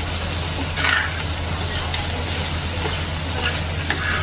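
Kopchang (beef intestines) sizzling on a tabletop grill, a steady frying hiss over a low hum, with a short louder burst about a second in.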